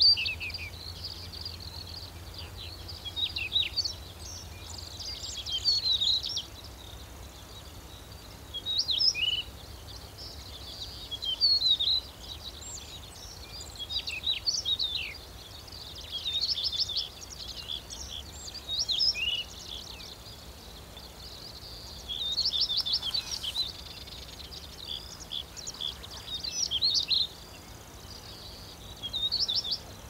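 Stonechat vocalizing: short phrases of quick, high chirps and twitters, repeated every two to three seconds.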